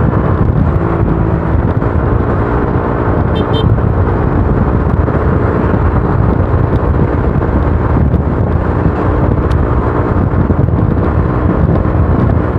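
Honda Click scooter with an aftermarket Akrapovic exhaust, riding at speed. Its single-cylinder engine holds a steady exhaust note, with heavy wind rush on the microphone throughout.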